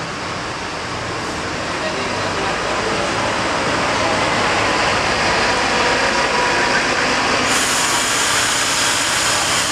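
Mercedes-Benz coach's diesel engine running as the bus rolls slowly past at close range, getting louder as it draws level.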